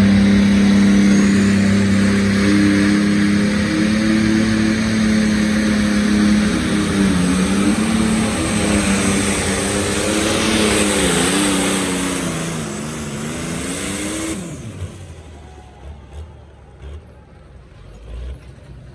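Light Limited Superstock pulling tractor's diesel engine running flat out under the load of the weight sled, a loud high-rev drone. About seven seconds in its pitch starts to waver and sag as it labours. About fourteen seconds in the engine sound cuts off abruptly, leaving much quieter background noise.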